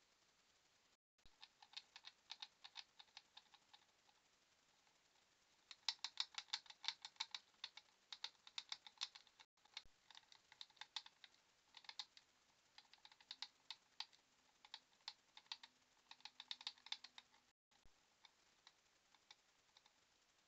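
Quick, irregular clicking and scratching from mice at a clear plastic live-catch mouse trap, coming in bursts of many clicks a second. The sound cuts out briefly three times.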